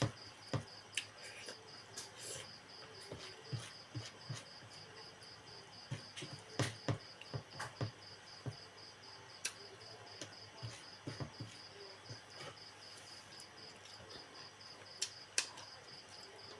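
A cricket chirping in a steady, fast pulsing rhythm throughout, with scattered sharp clicks and smacks of someone chewing fatty pork close to the microphone.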